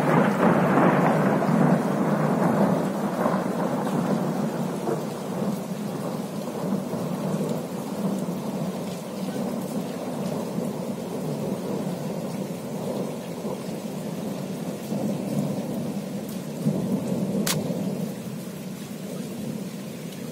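A peal of thunder breaks out suddenly and rolls on, rumbling and slowly fading over about fifteen seconds, with rain falling throughout. A single sharp click near the end.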